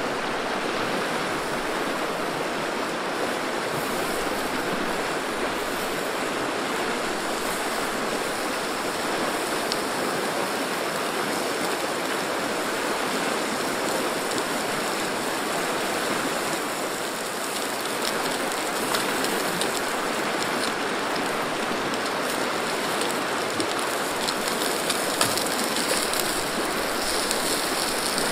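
Steady rush of a fast river flowing over rocks. In the last few seconds, pork belly slices sizzle and crackle on a hot camp griddle.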